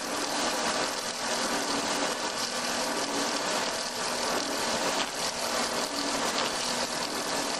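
Log-rounding wood lathe running, its cutter head shaving a turning log into a round: a steady, rough whirring with a low hum from the motors underneath.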